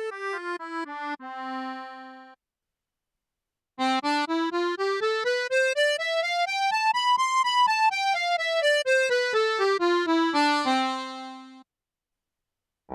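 Tianshuo digital accordion's right-hand keyboard playing a sampled accordion voice. A falling scale ends on a held note, then after a short pause a scale runs up about two octaves and back down, ending on a held note.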